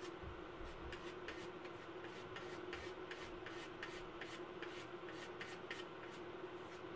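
Paint being mixed and worked with quick, uneven scraping strokes, several a second, over a steady low hum.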